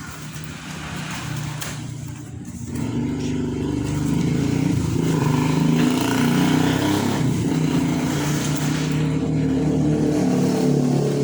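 An engine running steadily, a low drone that grows louder about three seconds in and then holds.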